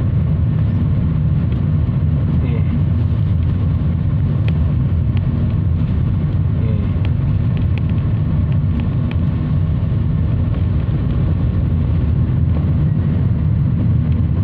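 Steady low rumble of a car driving at speed on a highway: engine and tyre noise heard from inside the vehicle.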